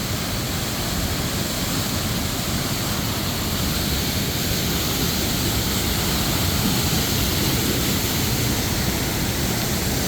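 Loud, steady rush of a waterfall, growing a little louder.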